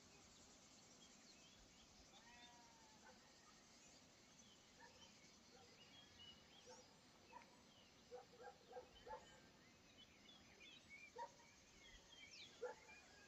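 Near silence with faint, scattered short chirps and quick up-sweeping calls of small birds, coming more often in the second half.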